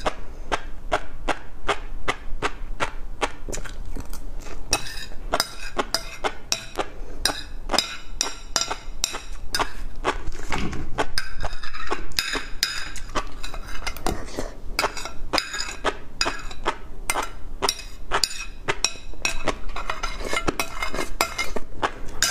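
Close-miked eating of fish roe: a steady run of small sharp clicks and crackles, several a second, with a metal spoon clinking and scraping on a ceramic plate.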